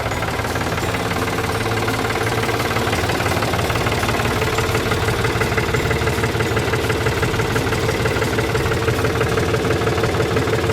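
New Holland tractor's diesel engine running steadily at idle, just started to check that it will run in the cold.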